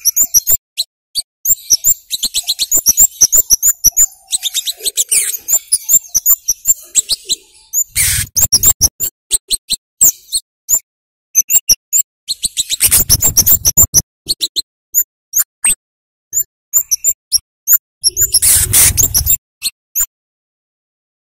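Scarlet-headed flowerpecker (kemade, cabai jawa) calling with sharp, high-pitched 'cit' chips in rapid runs, densest in the first half, with three louder, noisier stretches about 8, 13 and 19 seconds in.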